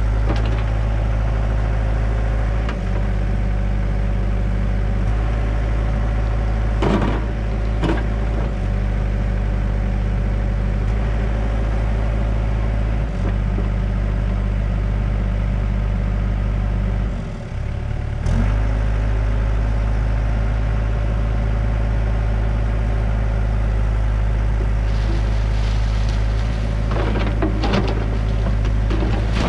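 Hyundai excavator's diesel engine running steadily as it digs, heard from the operator's cab, with a brief dip in engine sound about two-thirds through. A few knocks and scrapes of the bucket against the dirt and debris of the cistern come around a quarter of the way in and again near the end.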